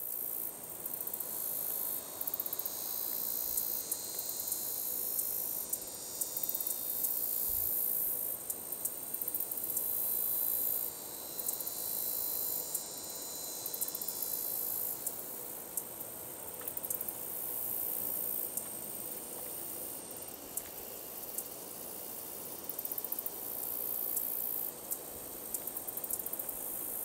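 Handsome meadow katydid (Orchelimum pulchellum) singing: high, thin buzzes lasting a few seconds each, broken up by runs of quick ticks.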